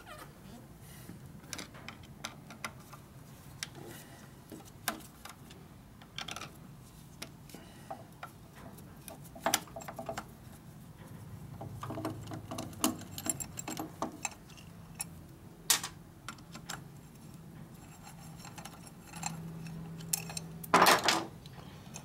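Irregular small metal clicks and clinks of a screwdriver and loose screws being worked around the distributor of a 1941 Harley-Davidson Knucklehead engine, with a louder clatter near the end.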